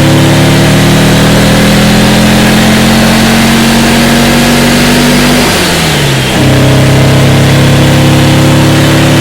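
1968 Porsche 912's rebuilt air-cooled flat-four engine pulling under load, its pitch climbing slowly. About six seconds in it drops away briefly for a gear change, then picks up at a lower pitch and climbs again.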